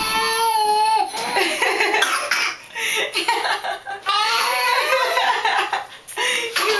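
Baby laughing in several long, high-pitched peals with short breaks between them.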